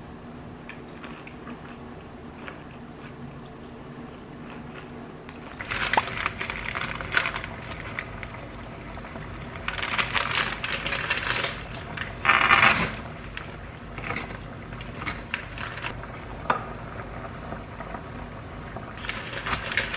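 Cooking-prep handling sounds at a pot: a plastic pasta packet rustling and dry spaghetti clattering into a metal pot, heard as a run of clicks and crinkles from about six seconds in, with one dense burst of crinkling midway. Before that there is only a faint steady hum.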